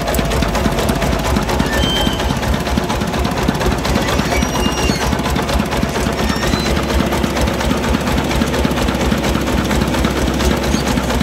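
Diesel engine of the sand-loading machinery running steadily close by, with a fast, even knocking rhythm, while a clamshell grab loads sand into a truck bed.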